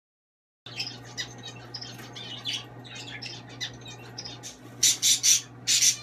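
Sun conure chirping and squeaking in quick bursts, then letting out several loud, harsh squawks near the end, over a steady low hum.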